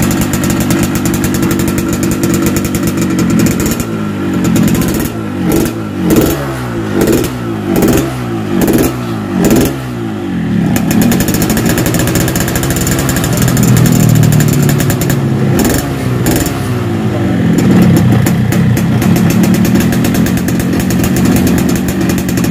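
Yamaha RX-King two-stroke single running through its hollowed-out stock exhaust, meant to give a crisp, growling "garing ngorok" note. It runs steadily, then gets about six quick throttle blips, then is held at higher revs.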